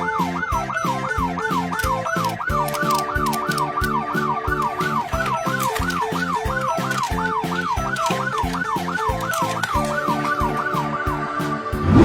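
A fast warbling emergency-vehicle siren, rising and falling about three times a second, over background music with a steady beat. The siren stops shortly before the end.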